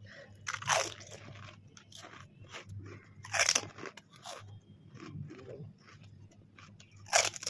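Crisp pani puri shells bitten and crunched in quick eating, with chewing between the bites; the loudest crunches come about a second in, a little after three seconds, and near the end.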